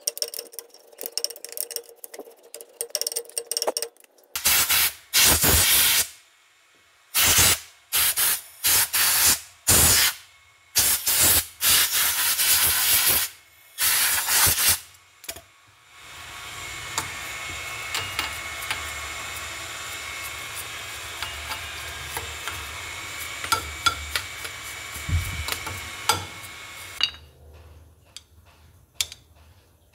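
Repeated short bursts of spray hissing as the rear drum brake parts are cleaned, followed by a steadier hiss lasting about ten seconds that stops suddenly.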